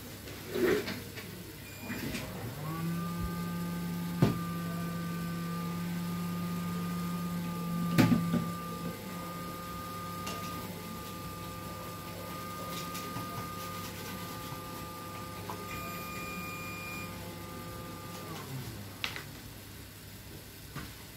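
A steady pitched hum from a small electric motor, gliding up as it starts about two and a half seconds in and winding down about three seconds before the end. A few sharp clicks, the loudest about four and eight seconds in.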